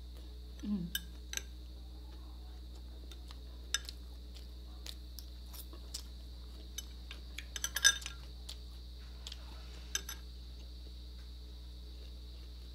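A metal spoon clinking against a glass dipping bowl in scattered light clicks, with a quick run of clinks about eight seconds in. Crickets chirp steadily behind it.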